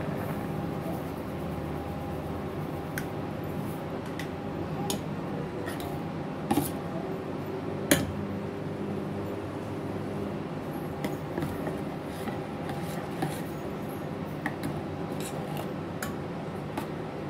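Steel ladle stirring in a steel pot of cooking black rice sweet, scraping and clinking against the pot with scattered sharp knocks, the loudest about eight seconds in, over a steady background hum.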